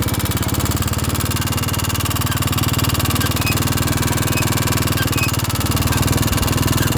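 Single-cylinder engine of a 1978 Kawasaki three-wheeler running steadily as the machine is ridden.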